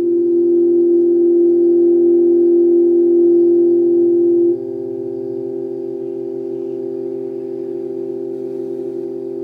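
Steady electronic tone with overtones, holding one pitch, played loud through a car audio system with an aftermarket Eclipse head unit. It steps down in volume about four and a half seconds in, then holds steady again.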